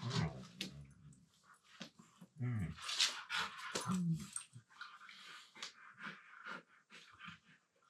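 Siberian huskies play-mouthing, one making short low-pitched growly 'talking' vocalisations, about three of them, with scuffling and clicking of teeth and paws between.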